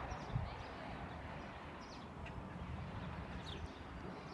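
Outdoor ambience: a few short, high, downward-sliding bird chirps, one now and then, over a steady low rumble.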